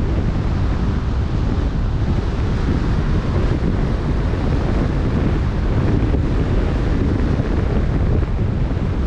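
Wind blowing hard across the microphone over the wash of choppy open-sea water. A loud, steady noise, heaviest in the low end, with no let-up.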